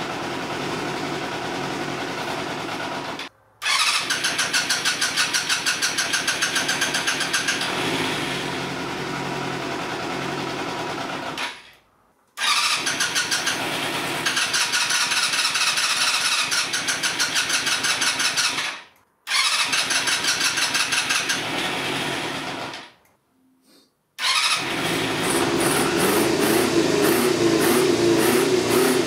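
Yamaha 250cc sportbike engine running in stretches, with a fast, even beat. It is broken several times by brief silences and comes back louder and fuller near the end.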